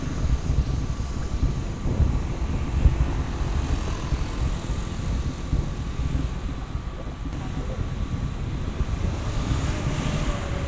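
Wind rumbling on the microphone of a moving camera, uneven and low, with a faint steady motor hum of road traffic underneath.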